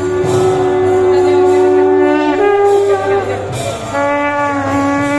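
Conch shells (shankha) blown in long held notes, two conches sounding together on slightly different pitches, one note rising partway through. After a brief break, another long conch blast starts about four seconds in.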